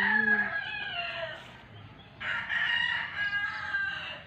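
Rooster crowing twice: one long crow trailing off in the first second and a half, then a second long crow from about two seconds in.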